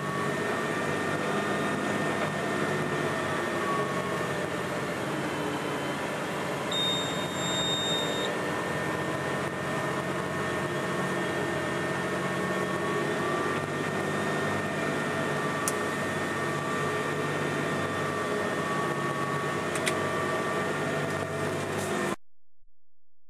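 Claas tractor engine running steadily while pulling a plough, heard from inside the cab as an even drone. A single high beep sounds for about a second and a half about seven seconds in, and the sound cuts off abruptly near the end.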